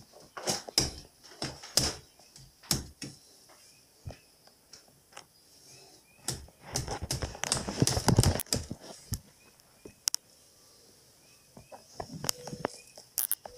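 Small hammer tapping nails back into a wicker couch: irregular sharp knocks, a few at a time with pauses between, and a busier run of knocks and handling noise in the middle.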